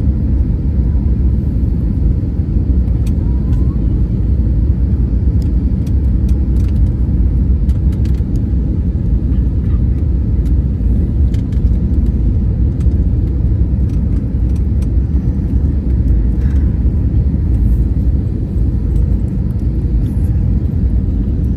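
Steady low rumble of airliner cabin noise on approach: engine and airflow noise heard from inside the cabin at a window seat, with a few faint ticks over it.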